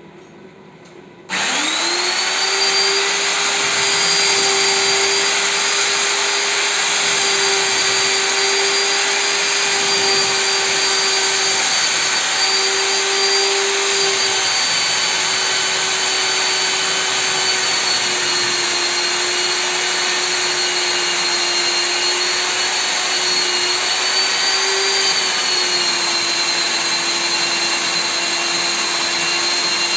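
Electric core-cutting drill starts abruptly about a second in and then runs steadily, cutting a core hole for an air conditioner. Its motor whine dips slightly in pitch now and then.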